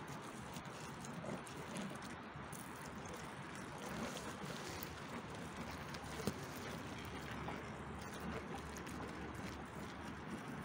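Steady hiss and patter of a thin water stream from a toy fire truck's hose splashing onto a burnt cardboard house, with one sharp click about six seconds in.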